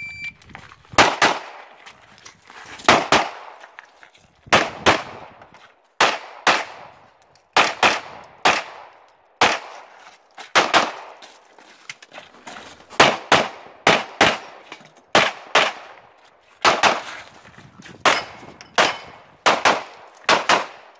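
A shot timer's short start beep, then a string of loud shots from a compensated 9mm STI DVC Open race pistol, fired mostly in quick pairs with gaps of about a second between pairs: double taps on each target during an IPSC stage.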